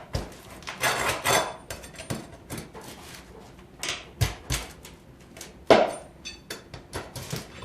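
Flat pry bar (wonder bar) working roofing nails out from under asphalt shingles: irregular metal clinks, scrapes and knocks, with a louder clank about six seconds in.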